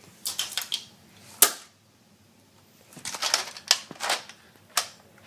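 Clicking and rattling of a plastic Nerf blaster being handled: a quick run of clicks, a single sharp snap, then another cluster of clicks and a few separate sharp snaps.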